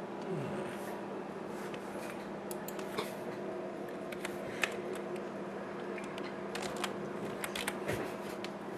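Scattered sharp clicks from someone working a computer, a few at a time, over a steady low electrical hum.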